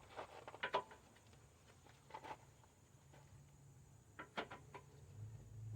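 Faint scattered clicks and light taps of a rubber radiator mount grommet and radiator parts being handled and fitted by hand, in small clusters, with a faint low hum near the end.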